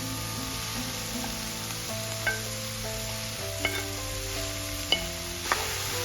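Food sizzling as it fries in a pan and is stirred, with four sharp clinks of a utensil against the pan in the second half.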